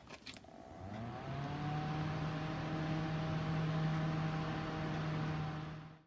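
A few clicks, then a small electric motor spins up about a second in, its hum rising in pitch and settling into a steady whir with a hiss, as if the machine were powering on.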